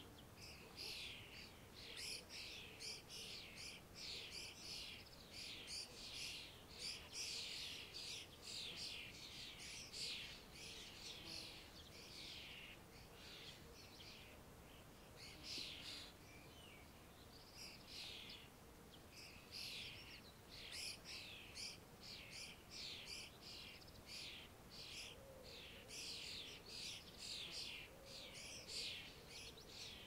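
Small birds chirping and twittering in a dense, high-pitched chorus of rapid short calls, thinning briefly about halfway through before picking up again.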